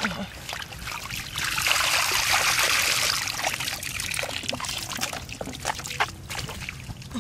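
Shallow muddy water splashing and trickling as it is scooped with a plastic mesh basket, with a longer pouring rush of water between about one and a half and three and a half seconds in.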